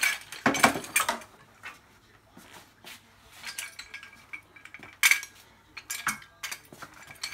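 Steel axle stands clanking on a tile floor as they are set under an ATV's axle, with their posts and safety chains clinking: a few sharp metallic knocks, the loudest near the start and again about five and six seconds in, some ringing briefly.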